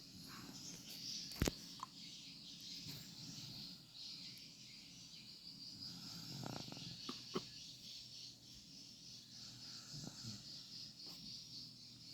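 A sleeping baby snoring faintly, with a few short snorting breaths, over a steady high insect chirring. There is a sharp click about a second and a half in.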